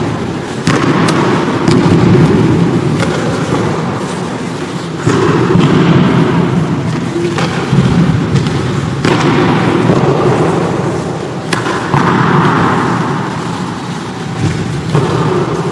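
Aikido practice on mats: frequent thuds of bodies hitting the mat in breakfalls, with bare feet shuffling, over a dense continuous din that echoes in a large hall.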